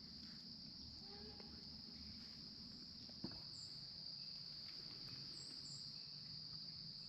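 Faint, steady insect chorus: one continuous high-pitched buzz, with a single soft tick a little past the middle.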